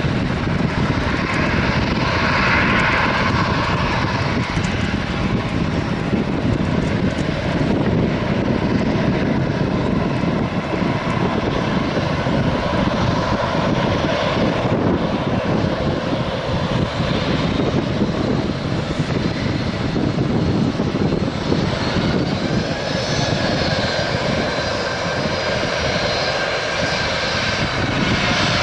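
Boeing 737-800's CFM56-7B jet engines at taxi power as the airliner taxis past: a steady jet noise with a faint whine. About 22 seconds in, higher whining tones come in.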